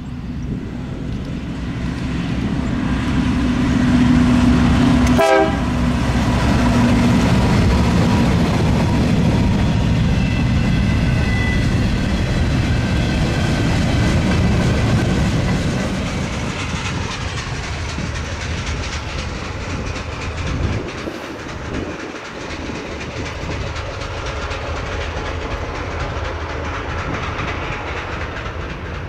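Freight train passing close by: the diesel locomotives go past loudest a few seconds in, then the cars rumble and clatter over the rail joints.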